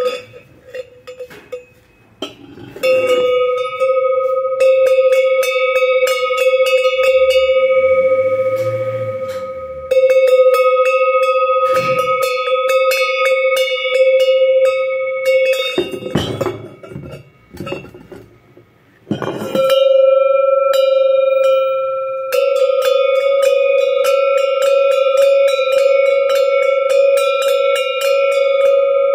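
Karaca metal bells being shaken, each ringing with one steady tone under a rapid patter of clapper strikes. The ringing stops twice for a few seconds of knocking and handling, and about two-thirds of the way through a slightly higher-pitched bell takes over.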